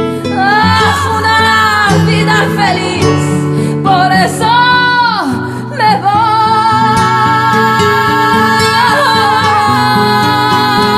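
Song with a female singer in a flamenco-tinged style over guitar accompaniment. She sings several short gliding phrases, then holds one long wavering note through the second half.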